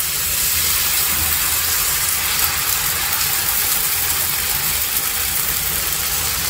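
Dosa batter sizzling on a hot tawa as it is spread out with a ladle: a steady hiss with a low hum underneath.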